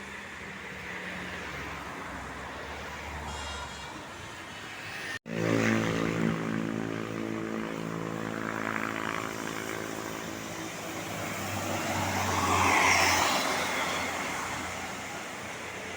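Road vehicle noise with a large bus passing close by: a steady, low engine note rises sharply after a brief break about five seconds in, then fades while traffic and tyre noise swell near the end.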